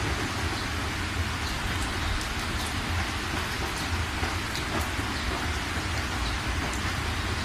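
Steady rain: an even hiss with scattered drop ticks and a low rumble beneath.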